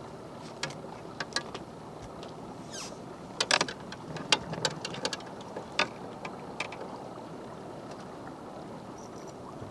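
Steady noise of a fishing boat under way at trolling speed, its motor and the water running evenly, with scattered sharp clicks and knocks of gear, the loudest about three and a half seconds in.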